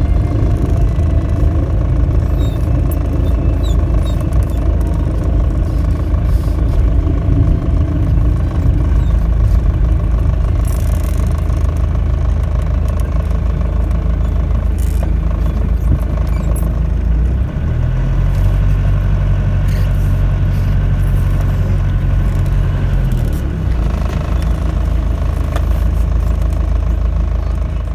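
Motorhome driving, heard from inside the cab: a steady low engine and road rumble with light rattles and clatter. For several seconds past the middle a steady low engine hum stands out over the road noise.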